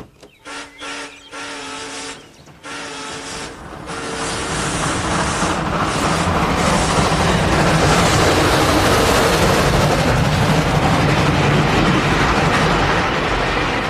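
A train passing: its horn sounds several short blasts, then a loud rushing rumble and hiss builds up as the train goes by, easing slightly near the end.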